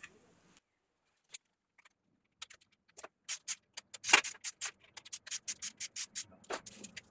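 Ratchet wrench clicking in quick runs, about four or five clicks a second, as the cam cap nuts of a VW Golf 16V cylinder head are wound down hand tight, with one louder metal knock about four seconds in.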